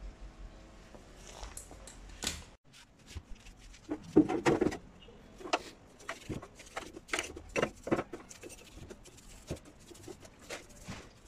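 A small stiff brush scrubbing the grimy housing of a chainsaw that stands in a sheet-metal tray, in quick irregular strokes with scrapes and knocks. The loudest clatter comes about four seconds in.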